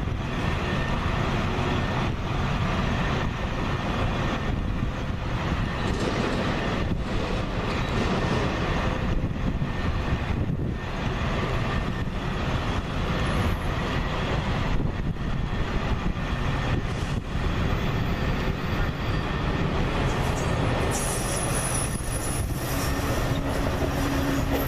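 Metra commuter train's stainless-steel bilevel passenger cars rolling past close by, a steady noise of wheels on the rails.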